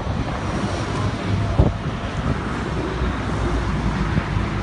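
Heavy diesel machinery running steadily, a low even rumble, with wind buffeting the microphone and a single short knock about a second and a half in.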